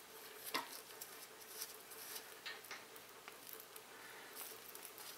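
Faint scattered clicks and light scraping as a drain valve's stem and packing cap are fitted and threaded back on by gloved hands.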